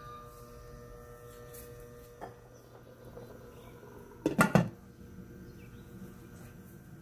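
Kitchenware knocking together: three quick, loud knocks about four and a half seconds in, with a lighter click a little after two seconds, over a faint steady hum.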